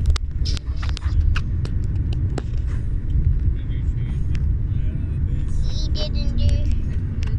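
Steady low rumble of a car driving, heard from inside the cabin, with frequent sharp knocks and rubs from a hand-held phone being moved against the microphone.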